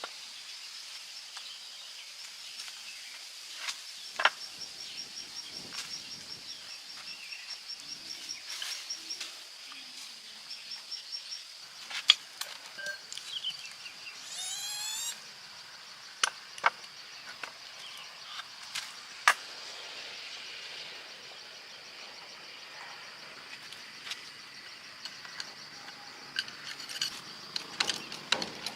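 Steady high-pitched insect chirring, with scattered sharp metallic clicks and clinks and a brief warbling call about halfway through. The clicks come faster near the end.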